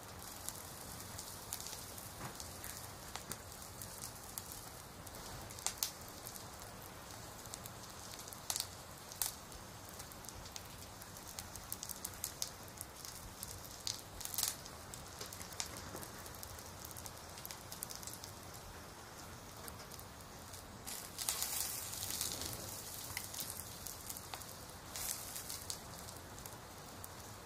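Rain falling steadily, with scattered close drop hits ticking through it and a louder spell of rain noise about two-thirds of the way through.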